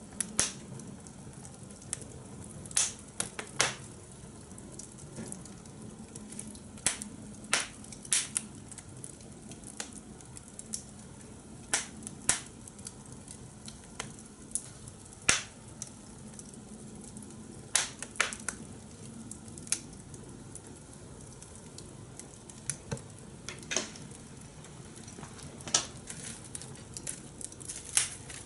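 A fire burning in a fire pit, crackling with sharp, irregular pops every second or two over a low steady hiss.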